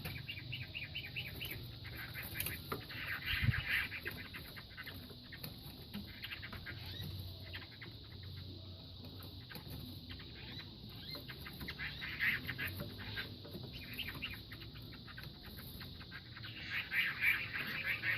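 Fighting roosters scuffling, with bird noises and wing flapping coming and going in clusters, and one sharp thump about three and a half seconds in.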